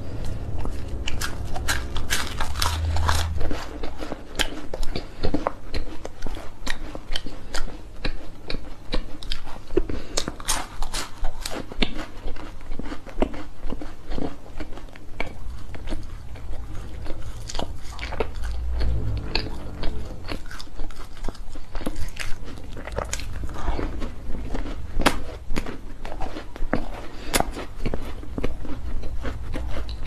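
Close-miked eating sounds: chocolate cookie pieces and cream cake being bitten and chewed, with many crisp crunches and wet mouth clicks throughout, over a low steady hum.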